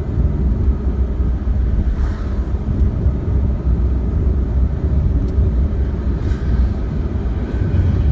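Steady low rumble of a car driving, the engine and road noise heard from inside the cabin.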